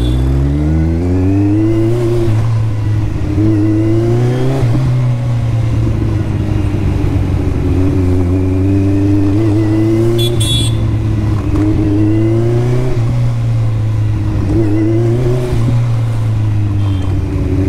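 Kawasaki motorcycle engine pulling through the revs on the move: its pitch climbs over the first couple of seconds, then falls and rises again several times as the rider shifts and eases off. A brief high-pitched sound cuts in about ten seconds in.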